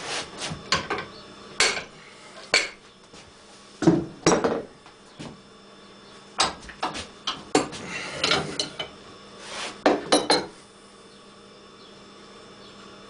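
Metal hand tools clinking and clanking in irregular sharp knocks: a socket wrench and a large adjustable spanner being taken off the crankshaft nut and cush drive rotor and laid down on the bench. The knocks are loudest about four seconds in and again near ten seconds, then stop.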